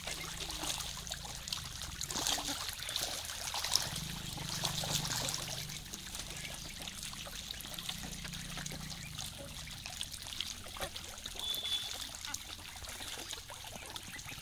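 Water trickling and splashing as a flock of ducks swims and dabbles in a shallow, muddy stream, with many small splashes and bill-dabbling ticks throughout.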